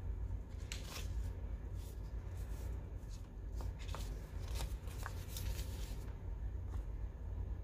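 Paper and stationery being handled for a journal spread: scattered rustles and crinkles, busiest from about three to six seconds in, over a low steady hum.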